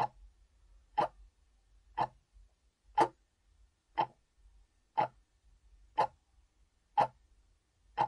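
A clock ticking steadily, one sharp tick about every second.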